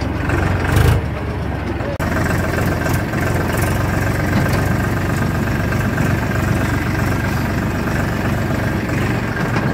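Farm tractor's diesel engine running steadily as it drives along a dirt track, heard from beside the driver's seat, with a brief louder bump about a second in.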